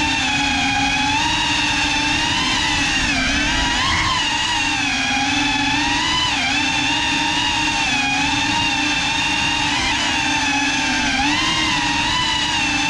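Small FPV quadcopter's electric motors and propellers whining, a steady buzzing tone whose pitch wavers and rises briefly a few times with throttle changes.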